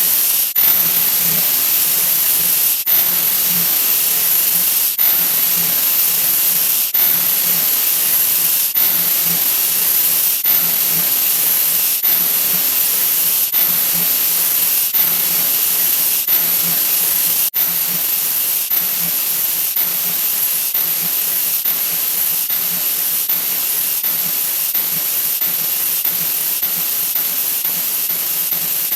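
A 'wah wah' sound effect sped up so far that it has become a steady high hiss, with a click at each restart of the loop. The clicks come about every two seconds at first and closer together later on.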